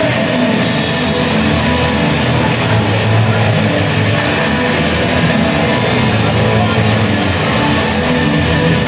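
Loud rock music played over an ice arena's public-address system.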